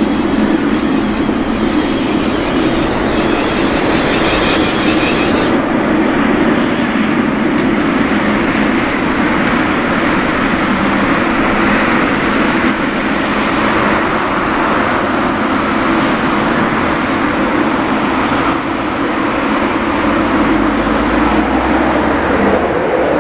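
Airbus A380's four Rolls-Royce Trent 900 turbofans at takeoff power during the takeoff roll and climb-out: a loud, steady jet rumble. A high hiss drops away about five seconds in, and a deeper rumble builds near the end.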